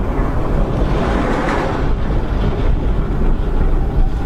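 Vehicle driving noise heard through a dashcam inside the cab: a steady low rumble of engine and tyres with wind noise, swelling briefly about a second in.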